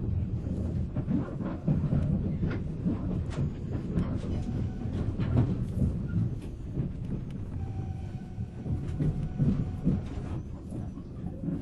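Rumble of a 485-series motor car running on the rails, heard from inside the cabin, with irregular sharp clicks and knocks from the wheels and rail joints.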